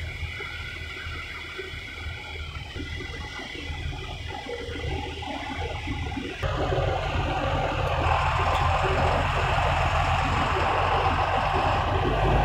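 Street traffic with a city bus's engine running close by. The sound gets suddenly louder about halfway through, with a steady low engine hum underneath.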